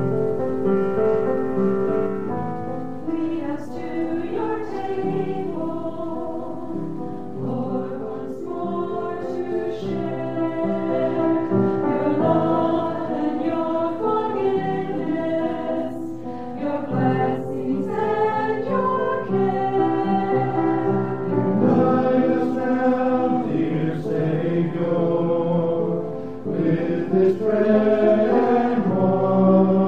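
A choir singing a hymn, several voices holding notes together.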